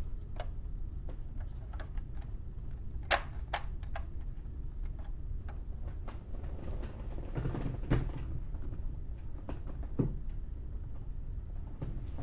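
Plastic Star Wars A-wing toy ship being handled and set down: scattered light clicks and knocks of hard plastic, the sharpest about three seconds in and near eight seconds, over a low steady hum.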